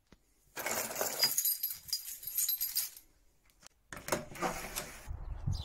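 A bunch of car keys on metal keyrings jangling as they are picked up and handled for about two seconds, followed by a few sharp clicks about four seconds in.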